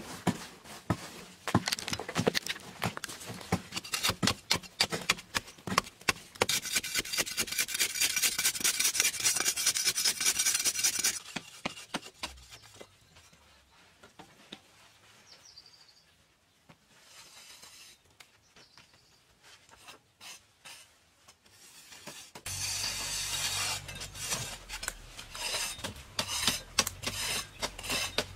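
Hand tools working hard-packed earth. First comes a run of sharp knocks as the dirt is chopped, then a loud, fast rasping as a blade scrapes an earthen wall smooth. After a quieter lull, the scraping starts again near the end.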